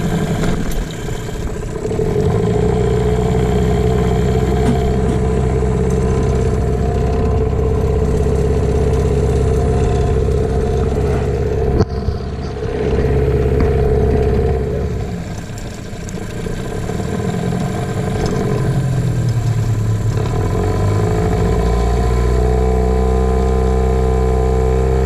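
The sailboat's auxiliary engine running steadily just after being started, warming up. Its speed sags briefly around the middle and then picks back up, with one sharp click partway through.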